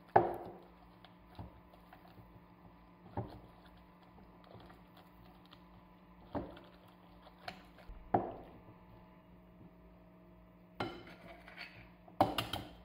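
A silicone spatula knocking and scraping against a glass mixing bowl while stiff choux dough is stirred, with sharp ringing knocks every couple of seconds. Near the end comes a quick double knock as an egg is cracked on the bowl's rim.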